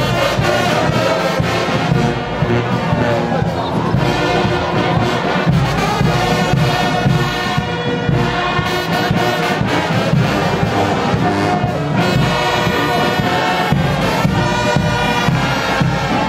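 Brass band music playing continuously at a steady, loud level.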